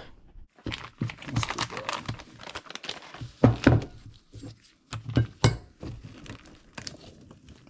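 Handling noise on a workbench: a crinkly plastic-covered sheet rustling as gloved hands move parts about, with a few knocks as items are set down and the long cardboard camshaft box is picked up, the loudest about three and a half and five and a half seconds in.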